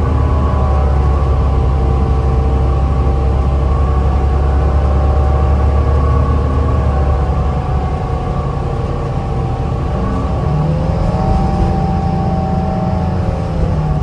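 Cabin sound of a 2010 New Flyer DE40LFA diesel-electric hybrid bus under way: Cummins ISL diesel engine rumble with steady whining from the Allison hybrid drive, plus road noise. The heavy low rumble drops away a little past halfway, and a rising tone comes in about ten seconds in.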